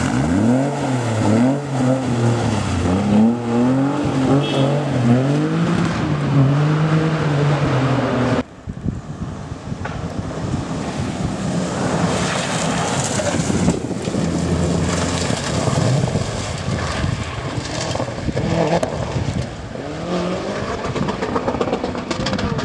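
A BMW E30 rally car's engine revving hard, its pitch climbing and dropping several times through gear changes as it drives through a gravel corner. About a third of the way in the sound cuts to a blue Subaru Impreza rally car further off, a steadier mix of engine and gravel noise with only faint engine tones.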